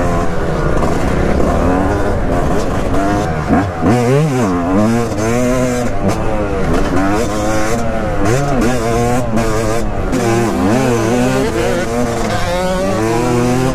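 Yamaha YZ250 two-stroke single-cylinder engine under hard riding, revving up and down through the gears. Its pitch rises and falls every second or so, with a few deep drops where the throttle is shut off and then opened again.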